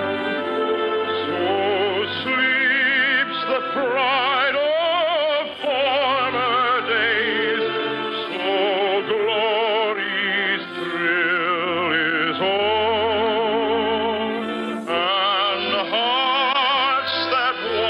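Operatic-style solo singing with heavy vibrato over an orchestral accompaniment, in the narrow, dull sound of an old radio recording.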